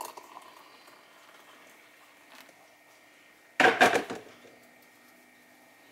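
Hot water poured briefly from an electric kettle into a ceramic mug, trailing off within the first second. About three and a half seconds in, a loud clunk as the kettle is set back down on its base.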